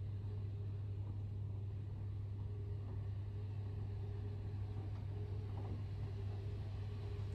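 Steady low hum of hallway room tone, level throughout, with a fainter steady higher tone above it. The delivery robot rolling on the carpet adds no distinct sound.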